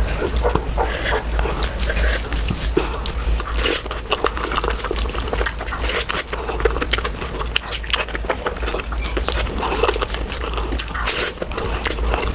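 Close-miked eating: wet chewing and smacking of puri and curry, with a dense, irregular run of small mouth clicks and squelches.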